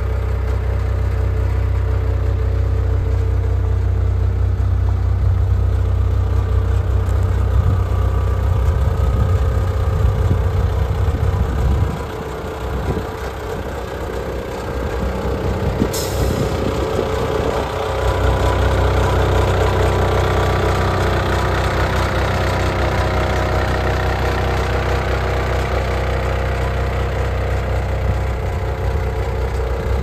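Mustang 2066 skid steer's Cummins diesel engine idling steadily. The low engine note thins out for several seconds midway, and there is a single brief click about 16 seconds in.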